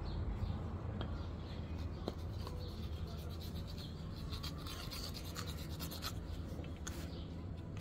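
Metal file scraping a soft soapstone carving in short, irregular strokes, shaving stone dust off, over a steady low background hum.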